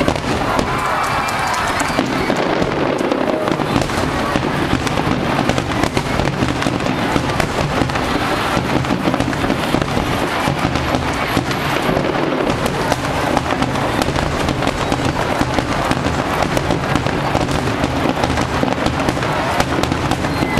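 Fireworks going off in a dense, continuous barrage: rapid crackling and banging with no let-up.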